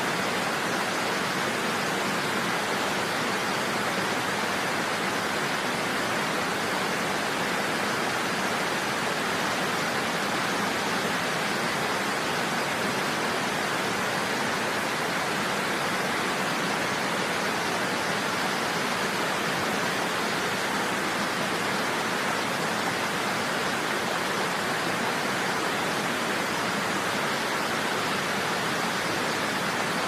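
Waterfall rushing steadily: an even, unbroken wash of falling water that doesn't change.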